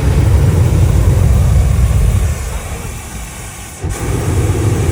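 Pulsefire UBF under-barrel flamethrower firing a long continuous burst of flame: a loud, deep rushing noise that eases off in the middle and swells again near the end.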